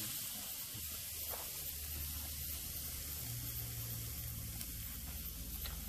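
Marinated goat legs sizzling on a charcoal grill over glowing coals, a steady hiss. A low steady hum comes in underneath about a second in, and there are a couple of faint ticks.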